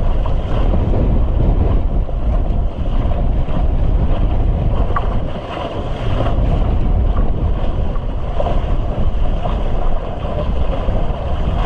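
Strong wind buffeting the microphone over rushing water and waves aboard a sailboat in a squall, easing briefly about five and a half seconds in.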